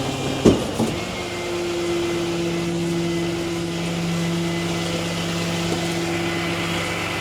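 Truck engine idling steadily, with a short knock about half a second in.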